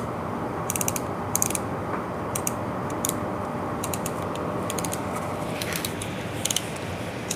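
Steady low rumble of a ship under way, with short bursts of rapid clicking or rattling every second or so.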